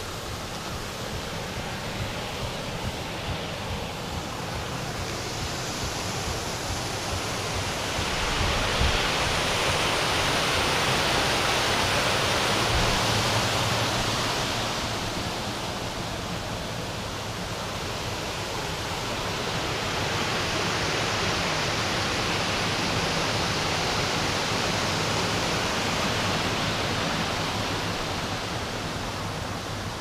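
Rushing water of a stream, a steady wash of noise that swells louder twice.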